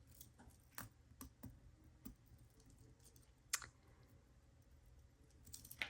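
Faint, scattered light clicks of small costume-jewelry pieces and chain knocking together as a tangled earring is worked free, with one sharper click about three and a half seconds in.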